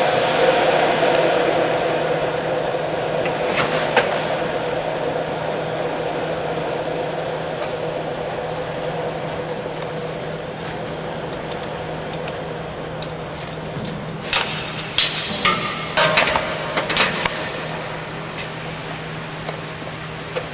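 A steady mechanical hum that slowly fades, with one sharp metallic knock early on and a cluster of clinks and knocks about two-thirds of the way through.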